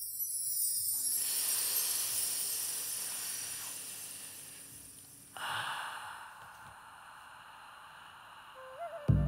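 Intro soundtrack: an airy, breathy swell with a high shimmer that fades out, then a second swell about five seconds in. Near the end a flute melody comes in over a low bass note.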